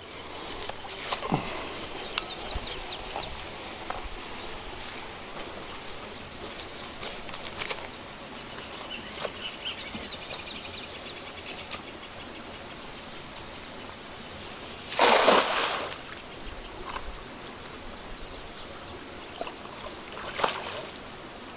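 Steady high-pitched insect chorus over faint scattered ticks, with a loud water splash about fifteen seconds in that lasts about a second, and a shorter, sharper sound near the end.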